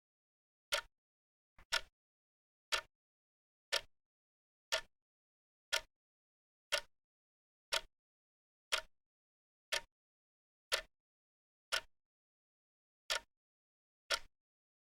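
Clock ticking about once a second: short, sharp ticks with dead silence between them. There is one faint extra tick just before the second tick, and one slightly longer gap near the end.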